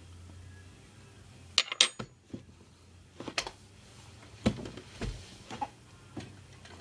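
Sharp clinks and knocks of a spoon and dishes being handled: a quick cluster of three about one and a half seconds in, then single knocks every second or so.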